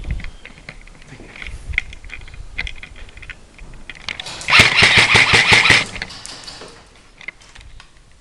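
Airsoft rifle firing a full-automatic burst of about a second and a half, with rapid, evenly spaced shots at about seven a second. Scattered fainter clicks and knocks come before it.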